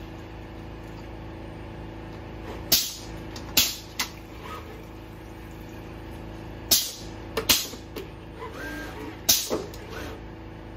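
Steady machine hum from the running robot arm, broken by several sharp clacks in two or three clusters as its gripper handles plastic cups and lids and sets them down.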